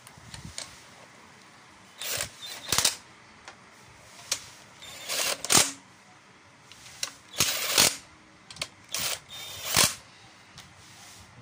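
Ratchet wrench clicking in several short bursts as the oil pump's bolts are run down in the bottom of the engine block.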